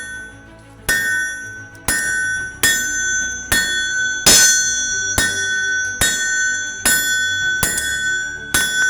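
Blacksmith's hammer striking rebar on an anvil, about ten blows at a steady pace of roughly one a second, each leaving the anvil ringing with a clear bell-like tone.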